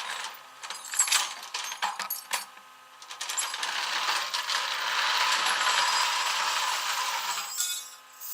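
Metal hand tools clinking and rattling in a series of sharp clicks, then a steady hiss for about four seconds that cuts off near the end.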